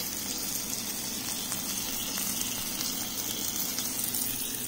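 Chicken pieces frying in oil in a pan, a steady sizzle.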